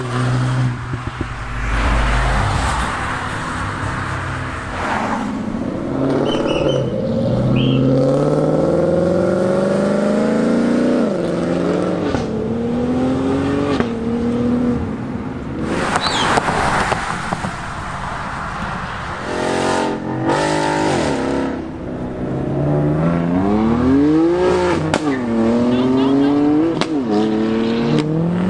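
Several performance cars accelerating hard past in turn, engine pitch climbing and dropping again and again as they shift up through the gears.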